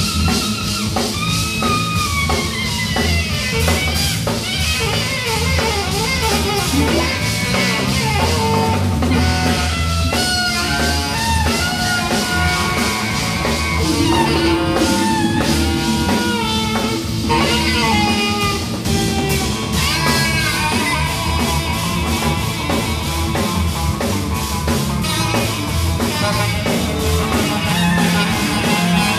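A live band playing: a saxophone melody with bending, sliding notes over drum kit, bass and guitar.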